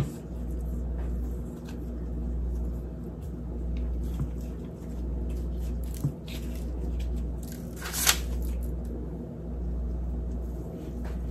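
Soft squishing of sticky cookie dough being rolled and pressed between gloved hands, with a few brief sharper rustles, the clearest about eight seconds in. A low hum underneath dips about every second and a half.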